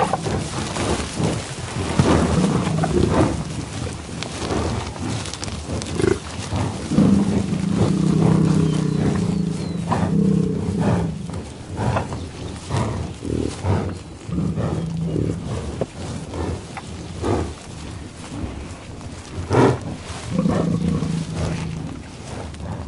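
American bison in tall grass giving about five low, drawn-out grunts, the longest about four seconds long in the middle. Short sharp sniffs and snaps of grazing in the grass come between them.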